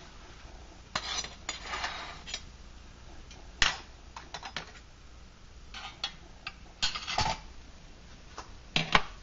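Metal clinks, taps and scrapes from handling a lit brass spirit burner and its metal stove stand while putting the methanol flame out: scattered knocks, the sharpest a little over three and a half seconds in.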